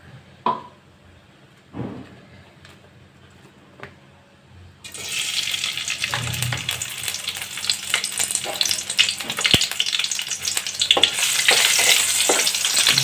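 A few light utensil knocks, then about five seconds in, hot oil in a pan starts sizzling suddenly and loudly as food goes in, and keeps frying with crackles and spatula stirring.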